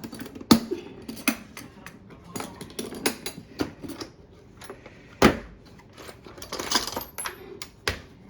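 Metal parts of a clothes dryer clinking and knocking as its new motor is handled and fitted back in, with scattered sharp clicks and two louder knocks, about half a second and about five seconds in.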